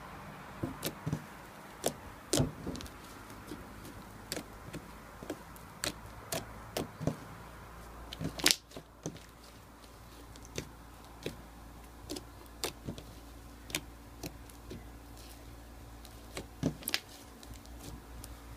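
Ice slime being squeezed and stretched by hand, giving irregular crackling clicks and pops, the loudest about eight and a half seconds in.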